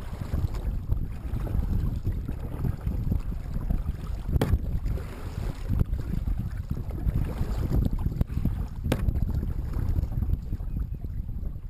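Kayak paddle strokes dipping through the water, under a steady low rumble of wind on the microphone. There are two sharp knocks about four and nine seconds in.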